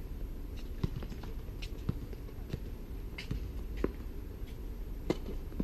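Tennis rally: a series of sharp pops, about a second apart, as the ball is struck by the rackets and bounces on the hard court.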